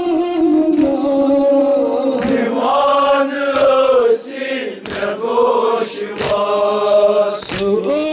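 A group of men chanting a nauha, a Shia mourning lament, in unison. Sharp chest-beating strikes of matam land about every second and a half, keeping time with the chant.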